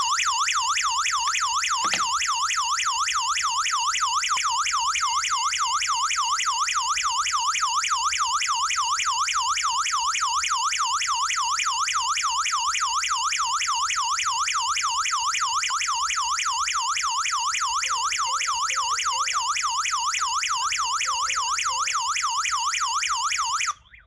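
HOMSECUR LD02-4G burglar alarm sounding its siren in a loud, fast, steady warble, set off by the SOS panic button on the remote control. It cuts off suddenly near the end.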